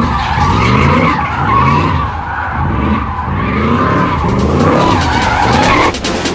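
Open-top roadster's tires squealing continuously as it slides across the pad, with the engine revving up again and again under the squeal. It cuts off suddenly just before the end.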